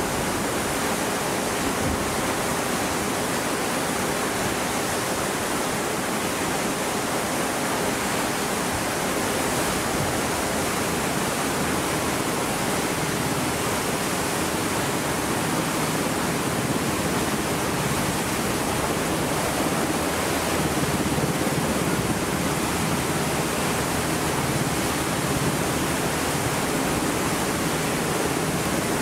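Steady, even rushing noise with a faint hum underneath and no distinct events.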